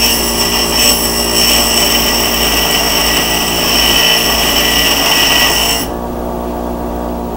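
Power grinder grinding metal, a steady high-pitched whine with a grating rasp. About six seconds in the grinding stops and the grinder runs on more quietly.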